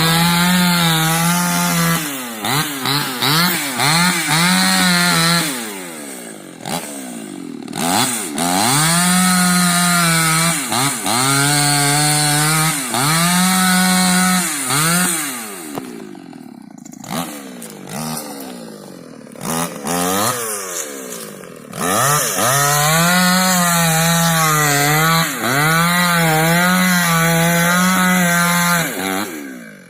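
Dolmar two-stroke chainsaw revved hard in three long stretches, its pitch wavering and dipping as it cuts into wood, falling back to a lower idle between the stretches.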